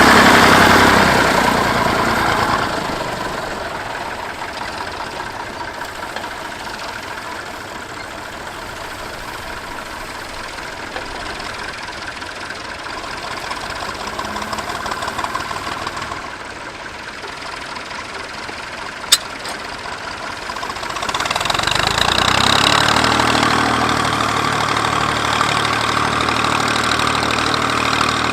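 Massey Ferguson 135 tractor engine running: loud at first, then fading and staying quieter for a long stretch. A single sharp click comes about two-thirds of the way through. Then an engine runs close and steady again from about 21 seconds in.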